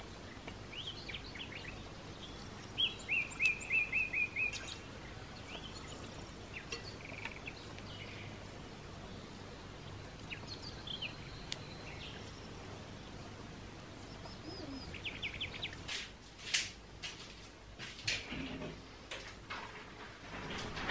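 Small songbirds chirping, with one quick trill of about seven repeated notes around three to four seconds in. From about sixteen seconds in, a run of sharp clicks and knocks.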